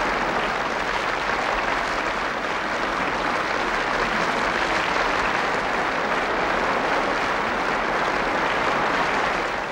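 A large stadium crowd applauding: dense, steady clapping from thousands of people.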